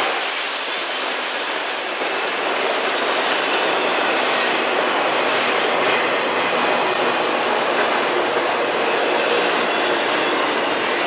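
Enclosed autorack freight cars rolling past on steel rails: the steady rumble and hiss of wheels on track, without a break.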